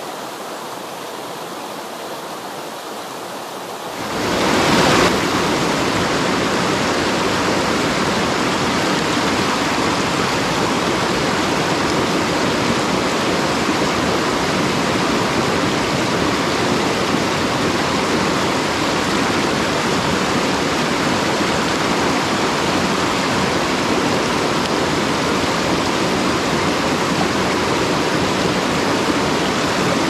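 Mountain stream water rushing over rocks, a steady noise. About four seconds in it becomes suddenly much louder and stays so.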